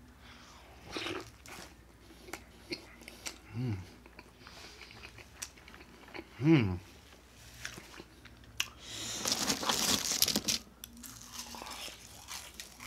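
Close-miked chewing of a Western Bacon Cheeseburger and fries, with small wet mouth clicks and smacks. Two short hummed "mm"s fall in pitch, one about three and a half seconds in and a louder one about six and a half seconds in, and a rustling burst runs for about a second and a half from about nine seconds in.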